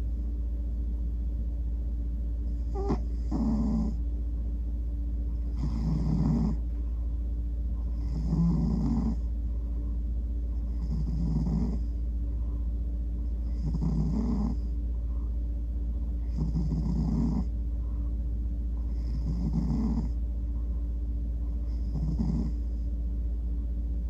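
Domestic tabby cat snoring in its sleep, one snore about every two and a half seconds, eight in all.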